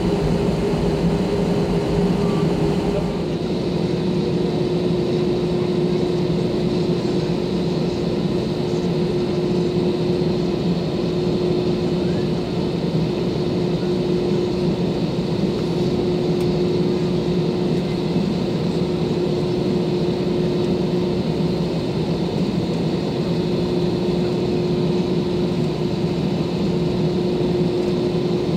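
Airbus A320's CFM56 turbofan engines at idle thrust, heard inside the cabin over the wing, as a steady hum with a constant whine. The aircraft is taxiing and then holding on the runway before the takeoff roll.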